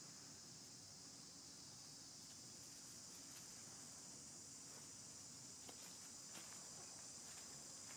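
Faint insect chorus, a steady high buzz, with a few soft crackles of dry leaf litter under walking monkeys in the second half.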